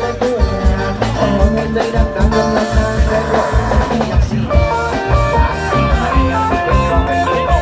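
Thai trae wong brass band playing an upbeat dance tune with a steady drum beat.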